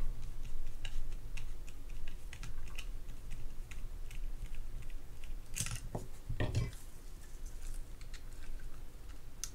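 Small metal clicks and scrapes of a screwdriver working on the bail arm mount of a Shakespeare GX230 spinning reel as the bail is taken off. Two louder knocks come a little over halfway through.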